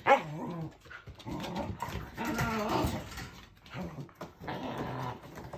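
Shetland sheepdog puppy barking excitedly, a sharp loud bark at the start followed by further barks and whining calls.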